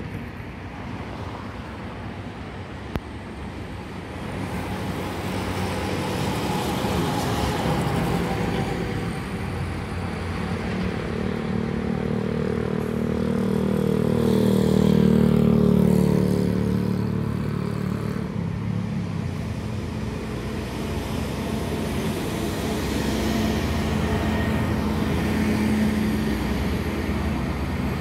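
Road traffic going by on a busy avenue. One engine vehicle passes close, loudest about halfway through, its engine note dropping in pitch as it goes by, and another rises more softly near the end.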